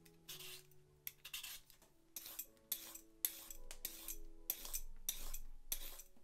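Handheld vegetable peeler scraping along raw root vegetables, a carrot and then a beetroot, in short repeated strokes at about two a second.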